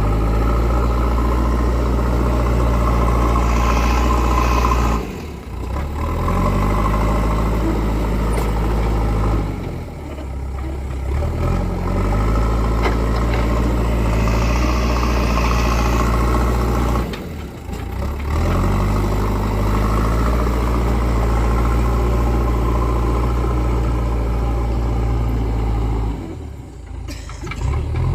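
JCB 3DX backhoe loader's diesel engine running steadily. Its revs dip briefly about four times and climb back each time.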